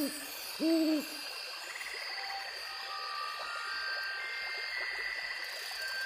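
An owl hoots twice in the first second, each hoot a single note that rises and falls, over the steady rush of a flooded creek. A few short frog trills and some held tones follow.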